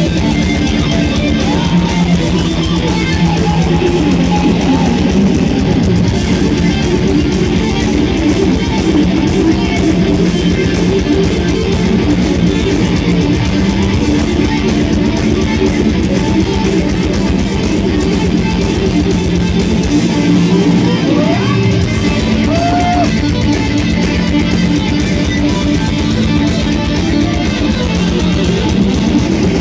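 Power metal band playing live through a large outdoor PA, with distorted electric guitars over bass and drums, heard from the crowd. The deepest bass drops out briefly about twenty seconds in.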